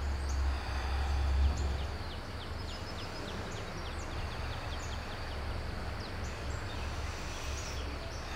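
Low steady room rumble with a small bird singing over it: about halfway through, a run of quick, short downward-sweeping chirps, about four a second, with scattered single chirps before and after.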